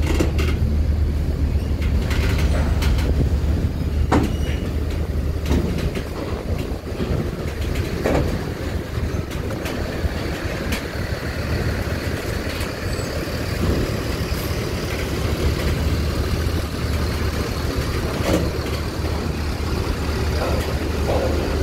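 A Mercedes-Benz coach's diesel engine running as the bus drives slowly up a steel ferry loading ramp. Its steady low hum is loudest in the first few seconds, with scattered clanks and knocks from the ramp's metal plates under the wheels.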